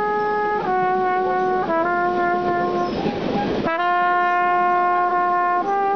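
Trumpet playing long held notes over the rumble and rattle of a rolling freight boxcar. About three seconds in the horn breaks off briefly and the train noise comes through, then a long steady note follows.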